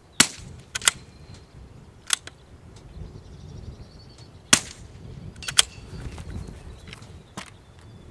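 Scoped bolt-action rifle firing two shots about four seconds apart. Each shot is followed within a second by sharp double clicks, with smaller knocks between them, from the bolt being worked and the steel targets being struck.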